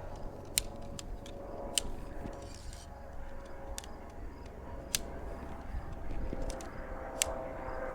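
Tent poles being handled, making a few sharp light clicks and clacks spread through, over a faint steady tone.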